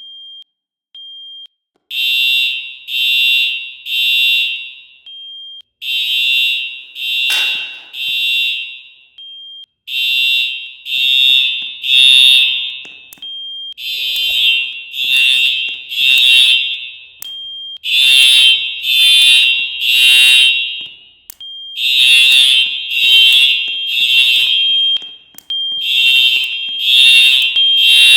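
Building fire alarm sounding the temporal-three evacuation tone: three loud, high-pitched blasts, then a short pause, repeating about every four seconds. A few short, fainter beeps come first, and the full pattern starts about two seconds in.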